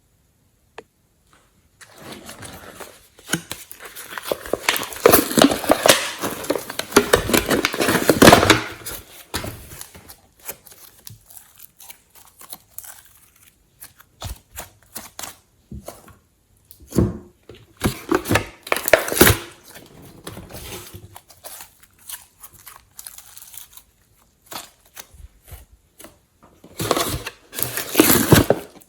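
Hands squishing and kneading glossy slime, making sticky crackling noises in irregular bursts. These are loudest from a couple of seconds in to about a third of the way through, and again near the end.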